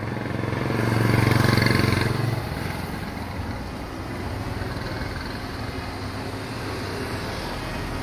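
A motor vehicle's engine passes close by, swelling to its loudest about a second in and fading away within the next second or so, leaving a steady background hum.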